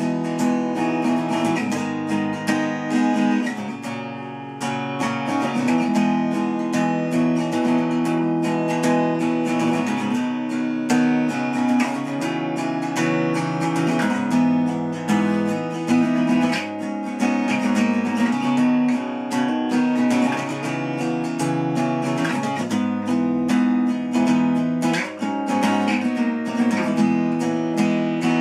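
Steel-string acoustic guitar with a capo, played instrumentally: a steady, busy run of picked and strummed chords with no singing, dipping briefly softer about four seconds in.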